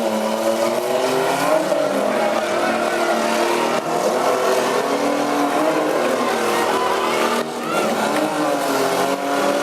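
Small pickup truck engines revving hard, their pitch rising and falling again and again as the trucks accelerate and back off, with more than one engine heard at once.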